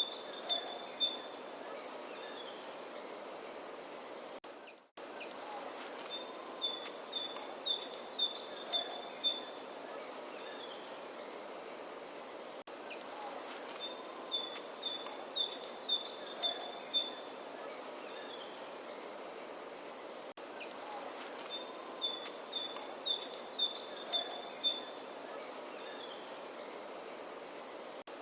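Birdsong over a steady outdoor hiss, one bird's phrase repeating identically about every eight seconds: a quick falling run of high notes, then a rapid trill alternating between two pitches. The exact repeats and a brief dropout mark it as a looped recording.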